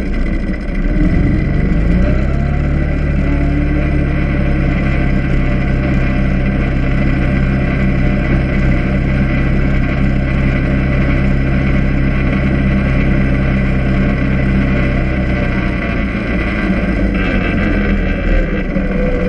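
Quad (ATV) engine pulling away, its pitch rising over the first couple of seconds, then running at a steady cruising speed before easing off near the end.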